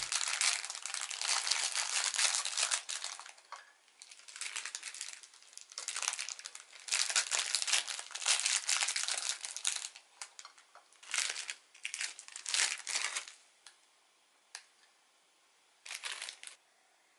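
Clear plastic cookie bag crinkling in irregular bursts as cookies are tipped out of it onto a plate, stopping about three-quarters of the way through, then a single light tap and one last short crinkle near the end.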